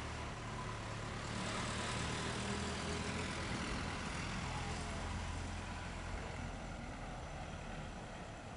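Distant locomotive-hauled passenger train approaching: a steady low rumble, with a rushing noise that swells between about one and five seconds in.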